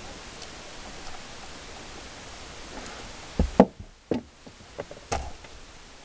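Hands handling a car stereo wire harness and tools: a steady hiss, then about five sharp knocks and clicks in the second half, the first ones the loudest.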